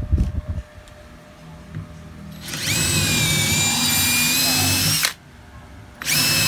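DeWalt cordless drill driver on its high-speed setting (gear 2) boring into a wooden plank with a wood bit. Its motor gives a high whine that climbs quickly and holds steady for about two and a half seconds, stops, then starts again about a second later. A few handling knocks come at the start.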